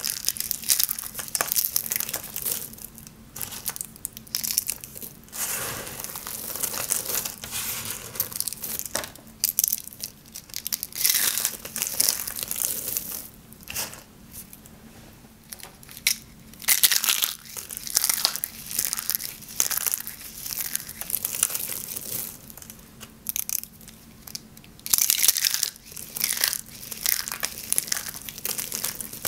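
Dry, hard soap curls and shavings crushed and crumbled in the hands: crisp crackling crunches in irregular bursts, with short pauses between handfuls.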